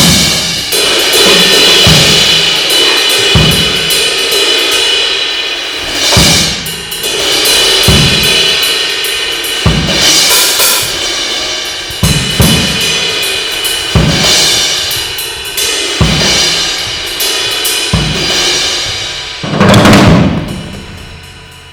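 Live drum kit playing: a bass drum hit about every two seconds under a continuous wash of cymbals and hi-hat. A louder crash swells near the end, then the playing dies down.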